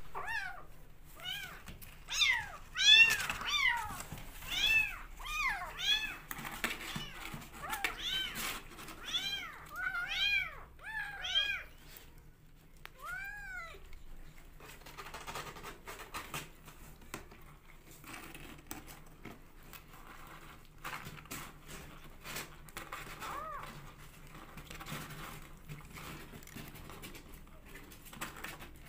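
Hungry young kittens meowing over and over, many high calls close together for about twelve seconds. Then they go mostly quiet as they suckle at a milk feeding bottle, with faint clicking sucking sounds and an odd meow.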